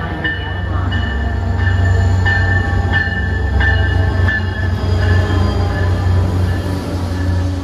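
An MBTA commuter-rail diesel locomotive and its bi-level coaches passing close by, the engine giving a deep steady drone under a high, steady squeal from the train.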